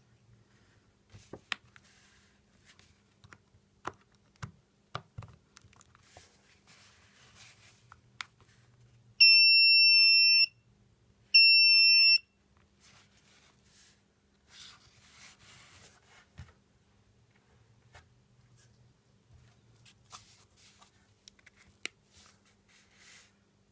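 Small electronic alarm buzzer sounding two steady, high-pitched beeps, the first about a second and a half long and the second just under a second, as a 9 V battery is connected to the homemade alarm circuit. Around them, faint clicks and scrapes of hands handling the battery and the box.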